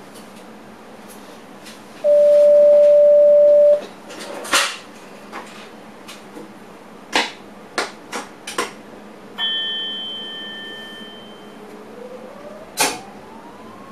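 Sounds inside an electric passenger train's driver's cab: a loud steady electronic beep lasting almost two seconds, then a scatter of sharp clicks and knocks and a short high chime. Near the end a whine rises steadily in pitch, the traction drive as the train gathers speed.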